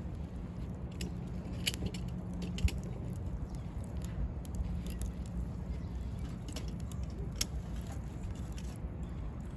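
Wood campfire crackling: scattered sharp pops and snaps over a steady low rumble, the loudest pop about two and a half seconds in.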